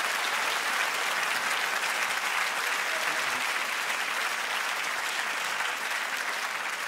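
Audience applauding, a dense, steady clapping that eases off slightly near the end.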